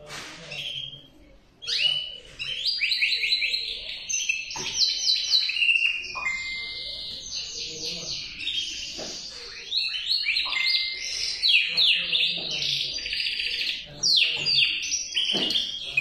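Male canary singing a long, fast song of rapid trills and rolls, starting about two seconds in.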